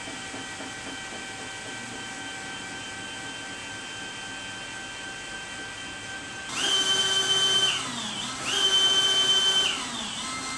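Cordless drill turning a long extension rod that drives the screw of a wooden scissor lift, running steadily. About six and a half seconds in it grows louder and higher in two spurts of about a second each, winding down in pitch after each one.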